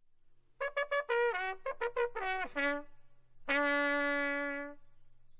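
A short trumpet fanfare jingle: a quick run of notes, several of them bending down in pitch, then one long held note.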